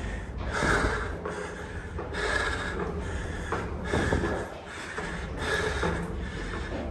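A man breathing hard and audibly, a rough breath in or out about every second, from the exertion of climbing a steep stone spiral staircase.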